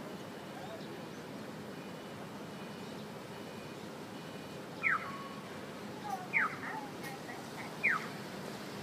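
Japanese audible pedestrian signal for blind walkers, sounding its electronic bird-like 'piyo' chirp once the walk light turns green: three short, identical falling chirps about a second and a half apart, each followed by a fainter, lower answering chirp. Under it runs a steady low street hum.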